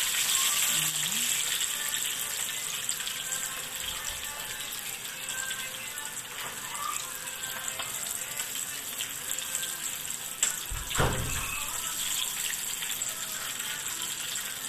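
Hot oil sizzling steadily in a frying pan around breaded pieces of food being deep-fried. A single sharp knock is heard about ten and a half seconds in, followed by a dull thump.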